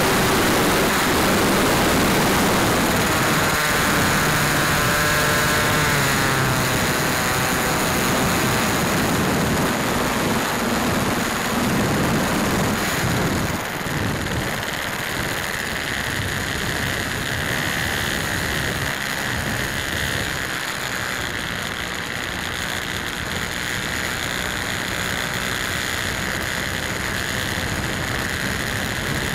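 Hangar 9 Alpha 60 model airplane's engine and propeller running, picked up by an onboard camera along with wind rush. The engine note wavers in pitch in the first seconds. About halfway through it drops a little and settles into a steadier, softer note, consistent with the throttle being eased back on approach.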